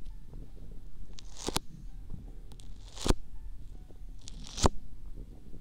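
Hands working close on a binaural microphone's rubber ears, three times: each time a rising swish ends in a sharp crackling pop, about one and a half seconds apart.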